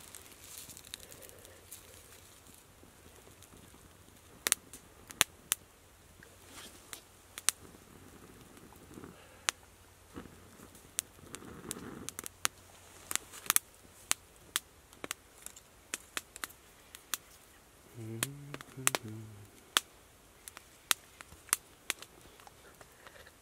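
Newly lit campfire of split kindling and wood shavings crackling, with sharp, irregular snaps and pops as the kindling catches. A brief low voice sound comes near the end.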